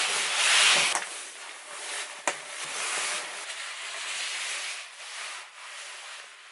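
Nylon padded jacket rustling and rubbing close to the microphone as it is taken off, loudest in the first second, with a single sharp click about two seconds in.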